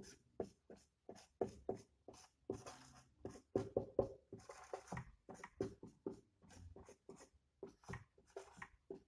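Dry-erase marker writing on a whiteboard: a quick run of short, separate strokes as letters are drawn.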